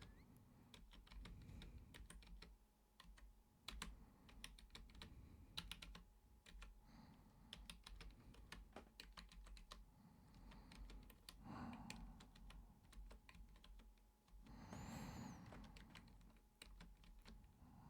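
Computer keyboard typing, faint: irregular runs of key clicks. Two soft breathy sounds come through, one a little past the middle and one a few seconds later.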